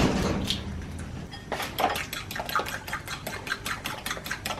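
A metal spoon clicking against a ceramic bowl as eggs are stirred into minced pork, a quick run of taps at about three to four a second from about a second and a half in. A louder knock and clatter comes right at the start.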